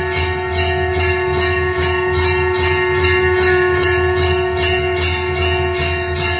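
Temple bells rung continuously and rapidly, about three strikes a second, their ringing tones overlapping and sustained over a long, steady held tone.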